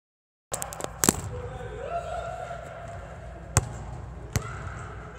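Basketball bounced on a gym floor: two sharp single bounces a little under a second apart near the end, after a cluster of clicks and a knock about a second in as the phone is handled.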